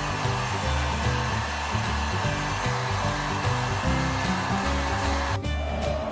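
Handheld hair dryer blowing steadily, cutting off abruptly near the end, over background music.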